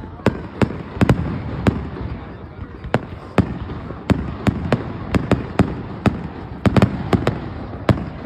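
Aerial fireworks exploding in a rapid, irregular string of sharp bangs, about two a second and some in quick pairs, over a low rumble.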